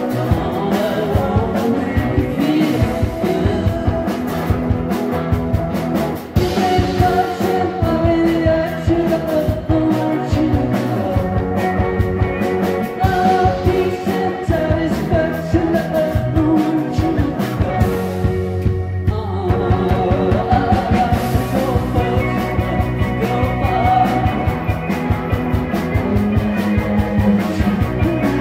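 Live rock band playing a song: electric guitar and drums under a sung lead vocal, with a steady beat.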